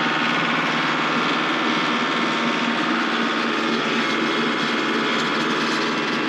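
Ford 1920 tractor's diesel engine running steadily at PTO speed, driving an empty, spinning Woodland Mills WC68 PTO wood chipper.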